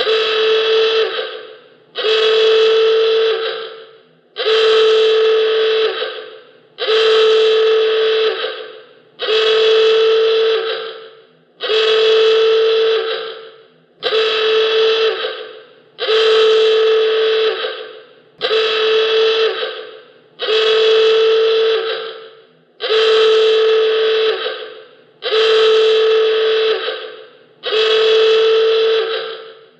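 Klaxon alarm, the classic film sound effect, sounding in repeated blasts about every two and a quarter seconds. Each blast is a steady, buzzy honk at one pitch that starts suddenly and fades away before the next begins.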